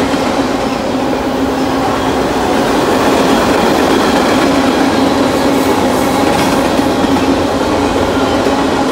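Freight cars of a BNSF train, tank cars and a boxcar, rolling past close by at speed: a steady loud noise of steel wheels on rail, with a steady low hum.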